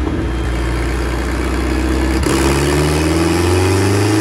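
Turbocharged Volvo wagon's engine running loaded on a chassis dyno. It holds a steady pitch, then from about two seconds in climbs steadily in pitch as it starts a pull up through the revs.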